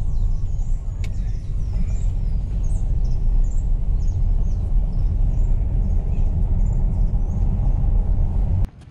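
Low, steady rumble of a car driving along a road, recorded on a GoPro Hero 7 Black, with quick high bird chirps repeating over it. The rumble cuts off abruptly near the end.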